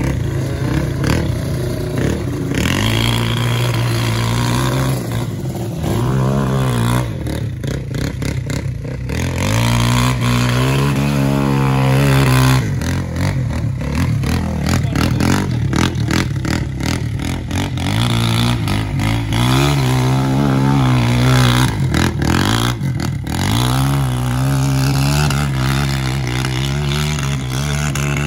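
ATV engine running under changing throttle, its pitch rising and falling again and again as the quad speeds up and slows down.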